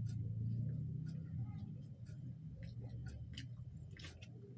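Faint eating sounds: chewing with small, irregular mouth clicks and smacks, about two a second, over a low steady hum.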